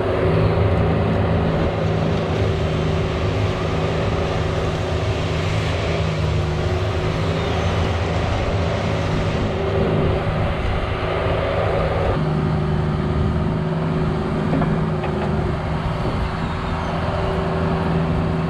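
Cat 304 mini excavator's diesel engine running steadily while trenching, its tone shifting around ten and twelve seconds in.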